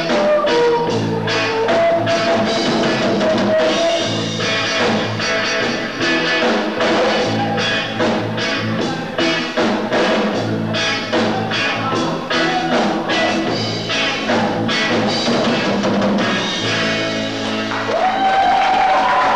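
Live rock band playing with a drum kit keeping a steady beat under electric guitar, with singing.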